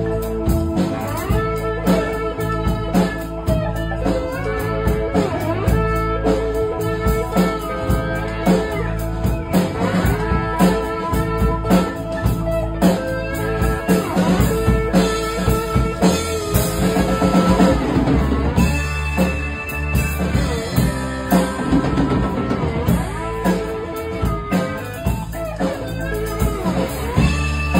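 Live band playing an instrumental passage: electric guitar lines over electric bass and a drum kit keeping a steady beat.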